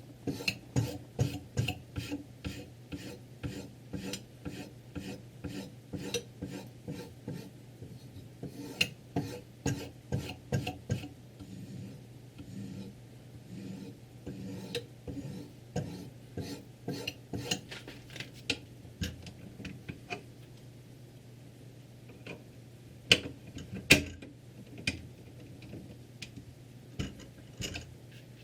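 Sharpening stone on a Ruixin Pro III guided sharpener's rod being stroked across a kitchen knife's edge: a run of short rasping strokes, about two a second, with a few lulls. Near the end come two sharp knocks about a second apart.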